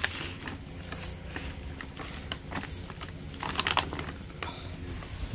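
Plastic packaging bags crinkling and rustling as they are handled, in irregular bursts of crackle, over a steady low hum.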